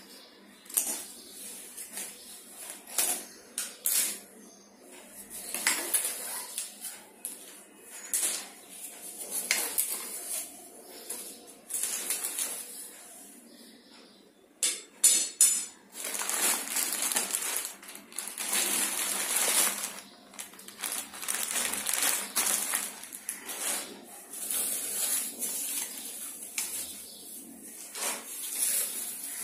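Scissors cutting plastic packing strap, then plastic wrap and a foam packing sheet crinkling and rustling as they are pulled off a wooden cot frame, with scattered clicks and taps.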